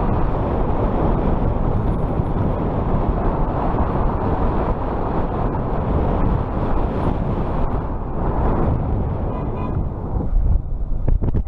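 Wind buffeting the microphone along with the rush of road noise from a fat-tire electric bike being ridden at speed. The rush is steady, then eases and breaks up near the end.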